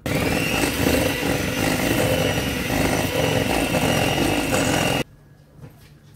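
Electric hand mixer running at a steady speed with a high whine, its beaters stirring dry flour, cornstarch and cinnamon in a stainless steel bowl. It cuts off suddenly about five seconds in.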